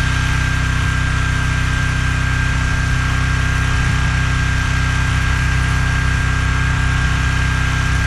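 Small engine of a towable backhoe running at a steady speed, with a steady high whine over its hum.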